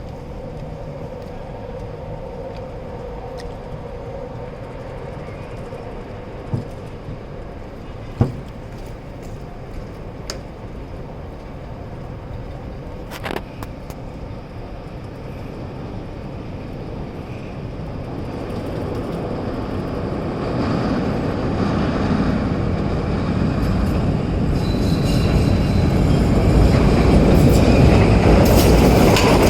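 A Morrison-Knudsen 3200-series CTA 'L' train approaching on the rails, its wheel and rail rumble growing steadily louder over the second half. Before that there is a low steady hum with a few sharp knocks, and a brief high squeal sounds as the train nears.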